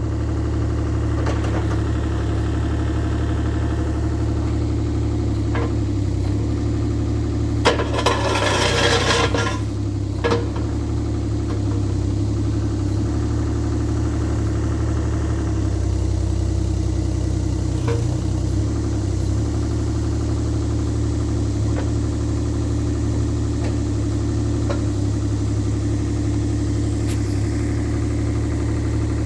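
Bobcat E35i compact excavator's diesel engine idling steadily, with a brief hissing rush about eight seconds in and a few faint clicks.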